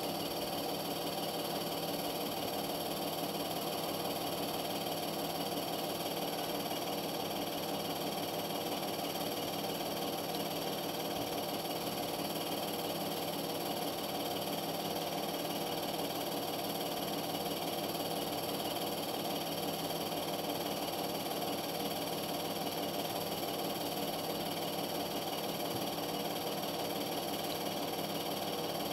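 Steady machine hum with hiss, unchanging throughout, made of many steady tones at once.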